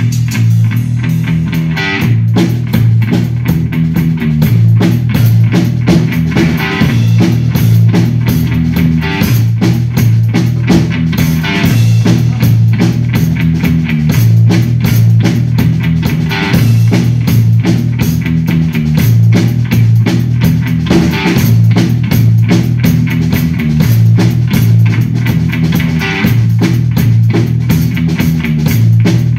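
Live bass-and-drums duo playing: an electric bass guitar run through effects pedals plays a loud repeating low riff while a drum kit keeps a dense beat with regular cymbal accents.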